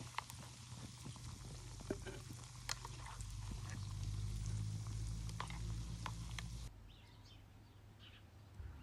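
Batter-coated potatoes frying in hot oil: a steady sizzle with scattered sharp pops and crackles. The sizzle cuts off suddenly about two-thirds of the way in, leaving only faint ticks.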